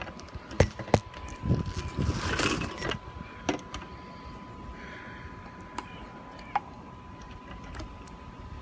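Sharp knocks and clatter from a pool vacuum head, pole and hose being handled at the pool, loudest twice in the first second, with a stretch of rustling handling noise and a faint steady high tone.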